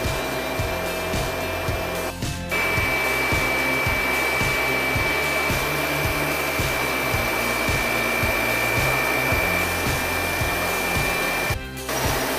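Factory machinery running: a steady whir with a high steady whine, over background music with a low regular beat. The sound dips briefly twice, about two seconds in and near the end.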